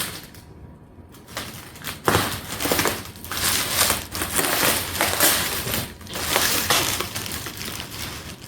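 Packing wrap being pulled, rustled and crumpled while heavily wrapped ceramic table torches are unwrapped from their box, in irregular surges starting about a second in.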